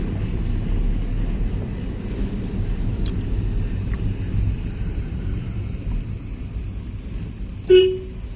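Car driving, with a steady low engine and road rumble, and one short horn toot near the end.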